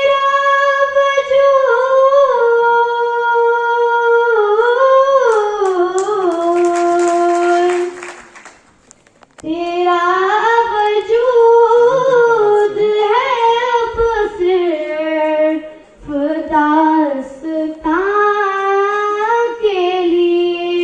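A woman singing unaccompanied into a microphone through a PA loudspeaker, holding long notes with ornamented turns that fall away at the phrase ends. There is a pause for breath about eight seconds in, then more phrases follow.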